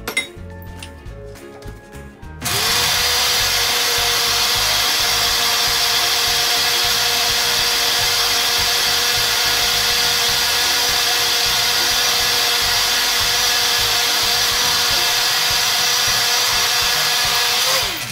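Black+Decker countertop blender switched on about two and a half seconds in, running steadily at one speed as its blades chop pandan leaves in water, then switched off near the end as the motor spins down. Before it starts, soft background music and a single click.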